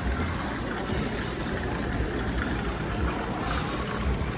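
Steady rumbling noise with a hiss over it, uneven but without any distinct events.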